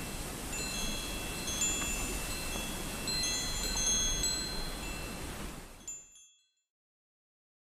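Tinkling chimes: many short, high ringing notes scattered over a steady hiss, fading out about six seconds in.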